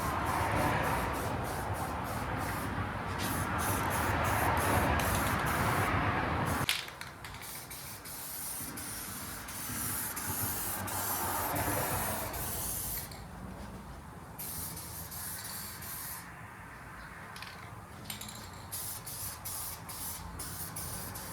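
Automotive paint being sprayed: a steady hiss for the first several seconds that cuts off suddenly, then a softer second pass of spraying a few seconds later.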